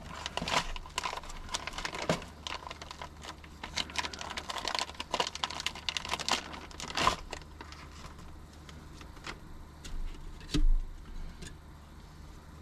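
Plastic food packet crinkling and crackling as dry food is crumbled out of it into a bowl, dense for about the first seven seconds and then dying away. A single dull thump near the end is the loudest sound.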